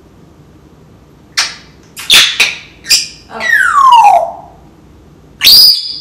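African grey parrot making a run of sound effects: several short, sharp calls, then a long whistle falling in pitch about three and a half seconds in, and a short high whistle near the end.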